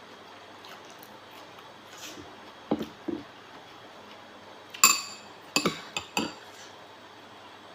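Eating utensils clinking and knocking against dishes several times. The loudest is a single sharp, ringing clink a little under five seconds in, followed by three quicker clinks.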